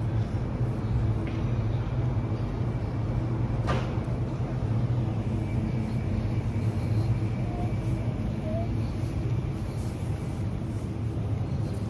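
A steady low mechanical drone, with one sharp click about four seconds in.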